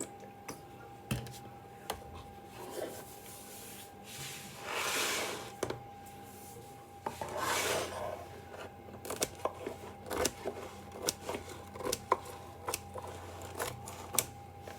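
Two long scrapes on a hard surface, each lasting about a second, then a run of quick light taps and clicks over a faint steady hum.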